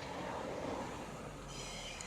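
Tobu Railway electric train running slowly on depot track: a steady rumble.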